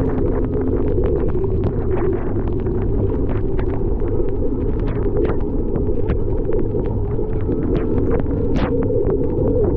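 Steady, heavy rumble of wind buffeting the microphone during a ride through a snowstorm, with frequent sharp clicks and taps throughout.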